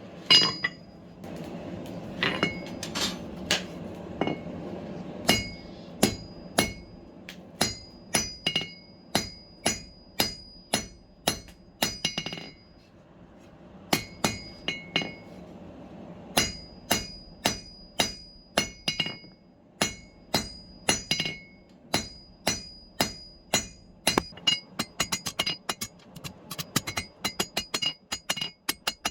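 Blacksmith's hammer striking steel on an anvil, about one and a half blows a second, each with a bright ring. The blows pause briefly twice and quicken to rapid lighter taps near the end.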